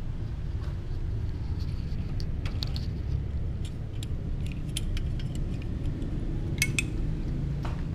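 Scattered light clicks and clinks over a steady low rumble, with a quick cluster of louder clicks near the end.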